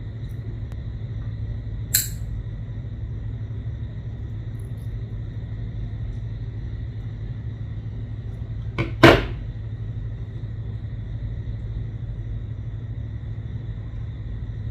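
Two sharp clicks from pliers working orthodontic wire while an Adams clasp's retentive arms are bent, one about two seconds in and a louder one near the middle, over a steady low hum.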